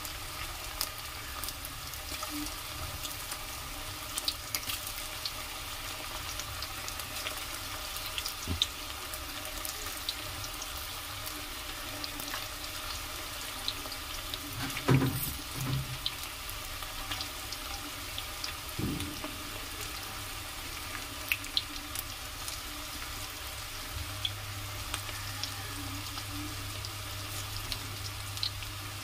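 Mutton keema koftas deep-frying in hot oil in an aluminium kadhai: a steady sizzle with scattered small crackles and pops. A brief louder knock about halfway through, and a faint low hum joins near the end.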